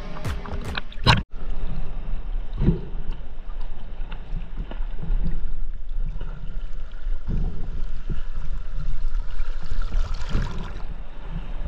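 Music ends about a second in, then a steady low rumbling noise with a few soft knocks.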